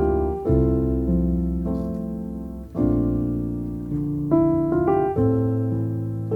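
Background music: a slow piano piece, chords struck every second or so and left to ring and fade.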